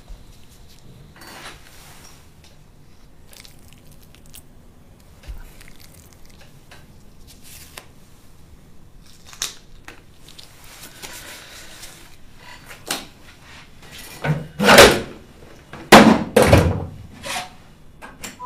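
Scattered light clicks and knocks, then a cluster of loud thumps two to four seconds before the end.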